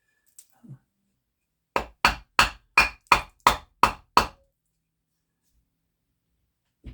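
Eight sharp knocks in quick succession, about three a second, as a block of wood is struck to drive a part of a Benjamin 710 air pistol into place.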